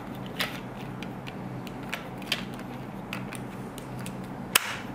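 Scattered small plastic clicks and rattles as a 9-volt battery is fitted into the handle compartment of a Raytek MT4 infrared thermometer, with one sharper click near the end.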